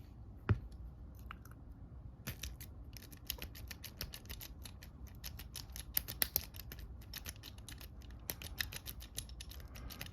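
Snake rake scraping and clicking rapidly across the pins inside a Master Lock Pro Series 7050 padlock as it is raked. One click comes about half a second in, then a dense run of fast, scratchy clicks begins about two seconds in.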